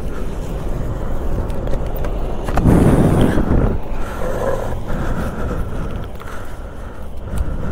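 Bajaj Pulsar RS 200 motorcycle's single-cylinder engine running as the bike rolls to a stop and then idles, with a louder stretch about three seconds in.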